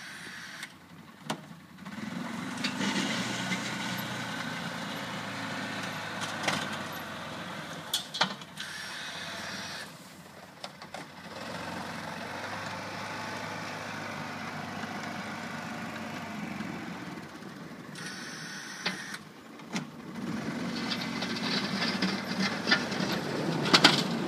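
Arctic Cat Prowler UTV engine running under load as it plows snow, its note rising and falling in a few surges. A few sharp clicks and knocks sound over it.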